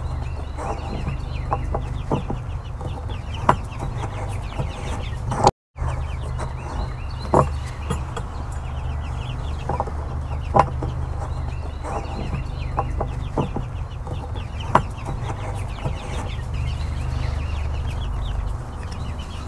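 Chickens clucking, with short calls scattered over a steady low hum and a few sharp clicks. There is a brief dropout about five and a half seconds in.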